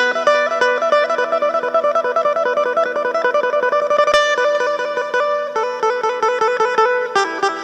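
Isan phin, the northeastern Thai plucked lute, playing a fast, lively melody of quick plucked notes over a steady low drone.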